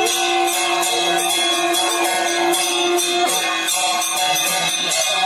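Music with a held, droning tone under steady rhythmic jingling, like bells or a tambourine, at about three strokes a second.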